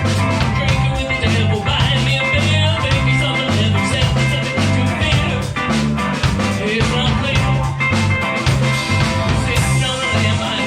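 A live band playing a rock song, with drums and bass keeping a steady beat.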